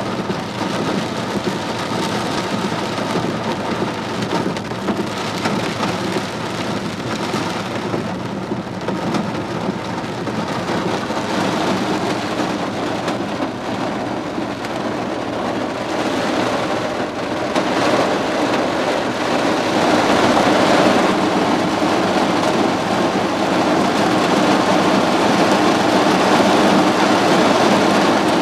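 Heavy rain drumming on a car's roof and windshield, heard from inside the car, with a faint steady low hum underneath. The downpour grows louder about two-thirds of the way in.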